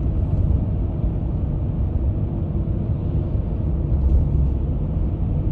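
Steady low road rumble of a car driving along at speed, heard from inside the cabin.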